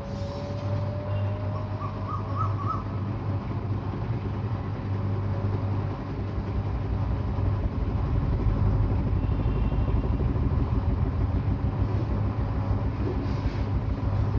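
Washing machine in its spin cycle, standing on anti-vibration pads: a steady low motor hum and drum rumble, with a faint rising whine in the first second.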